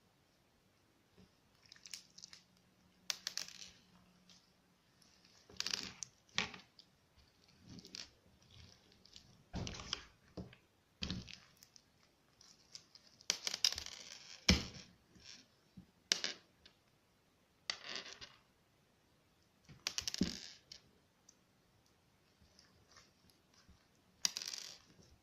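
Crunchy slime being squeezed and poked by hand, giving separate crackling, popping bursts every second or two.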